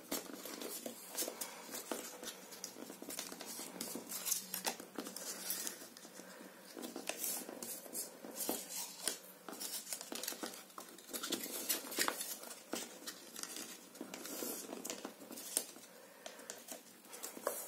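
Paper rustling and crinkling as patterned paper is folded over the edges of a chipboard frame and pressed down by hand, with many small irregular crackles and taps.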